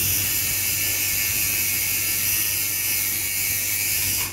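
Electric tattoo machine buzzing steadily as its needle inks skin.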